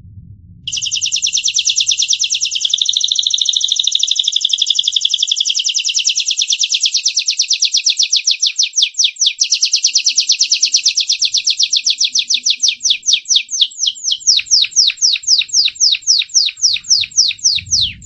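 Gloster canary singing one long unbroken trill starting about a second in: very fast repeated high notes that gradually slow into separate, falling notes reaching lower in pitch near the end.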